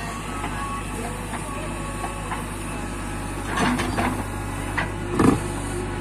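JCB 3CX backhoe loader's diesel engine running steadily while its backhoe digs. There are louder scraping and knocking bursts about three and a half seconds in and just after five seconds, the second one the loudest.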